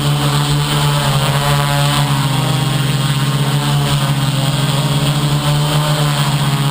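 Motor and propeller of an FPV radio-controlled aircraft running at a steady speed: a loud, even buzz whose pitch wavers slightly a couple of seconds in.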